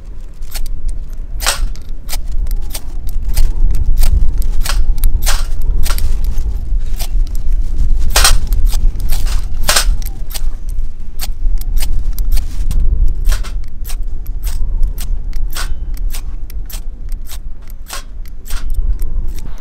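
Ferrocerium fire-steel rod scraped again and again with a steel striker, a sharp rasping strike about twice a second, irregular, as sparks are thrown onto tinder to light a camp stove. A steady low rumble runs underneath.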